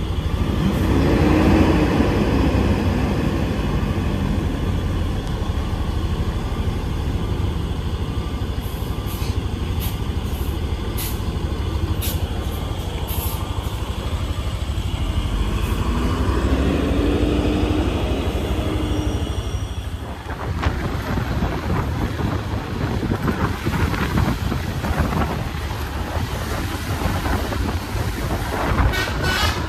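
Heavy bus diesel engine running, its note swelling twice as it works, with a few short high clicks along the way.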